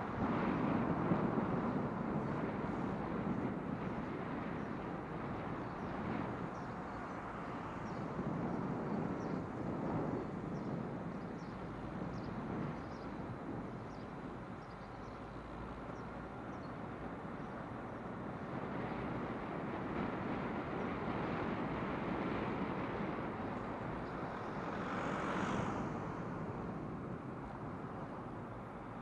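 Steady outdoor road and traffic noise that swells and fades as vehicles pass, with one louder, hissier pass near the end.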